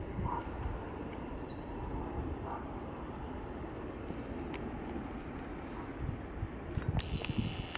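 A songbird singing twice, each phrase a quick run of high notes falling in pitch, over a steady low rumble. A few sharp clicks come near the end.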